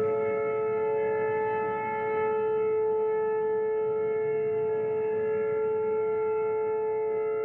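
Three rotating outdoor tornado warning sirens, two of them Whelens, sounding a steady alert tone during a monthly siren test. Several held tones at different pitches overlap, and the level swells and dips gently as the sirens turn.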